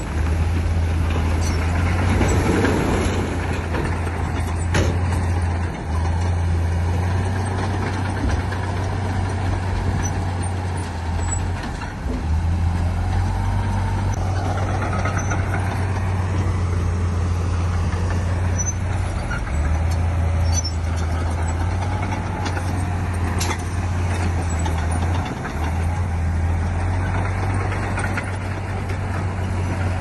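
Heavy diesel earthmoving machinery running steadily with a deep drone that dips briefly a few times. There is a sharp knock about five seconds in and another a little after twenty-three seconds.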